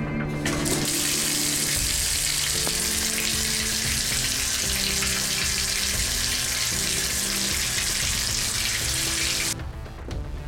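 Bathtub tap turned on, water running hard into the tub as a loud steady hiss that starts about half a second in and cuts off suddenly near the end. Quiet background music plays underneath.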